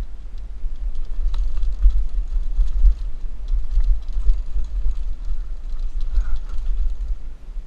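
Wind buffeting a helmet-mounted action camera's microphone during a downhill mountain bike ride: a loud, uneven low rumble, with faint scattered clicks and rattles from the bike on rough trail.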